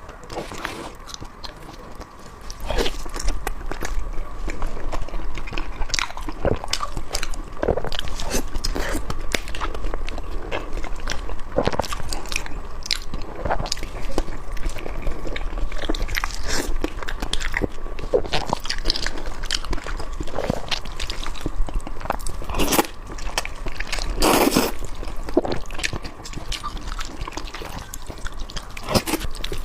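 Close-miked eating of Nanchang mixed rice noodles and barbecued beef tendon: chewing and biting, with many irregular short wet clicks and smacks. A faint steady hum sits underneath, and a low rumble comes in about two and a half seconds in.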